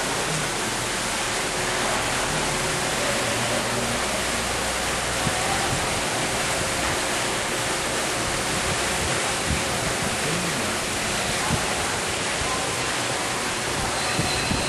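Steady, even rush of falling water from a stepped cascade fountain.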